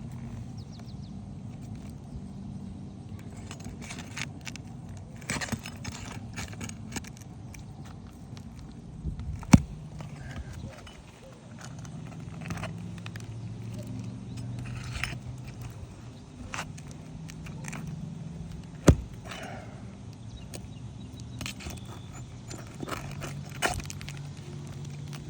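Hand work on asphalt roof shingles: scattered scraping and clicking of tools against the shingles, with two sharp knocks like roofing-hammer blows about nine seconds apart, over a low steady rumble.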